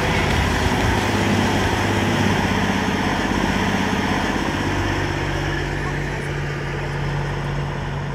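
Heavy truck's diesel engine idling with a steady low hum. A slightly higher hum joins about five seconds in, and the sound grows quieter toward the end.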